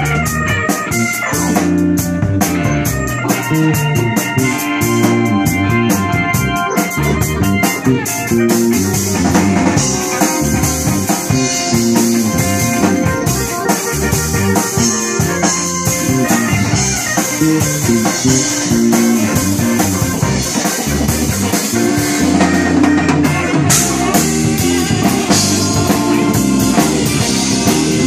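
Live blues-rock band playing an instrumental passage on electric keyboard, electric bass, electric guitar and drum kit, the drums keeping a steady beat.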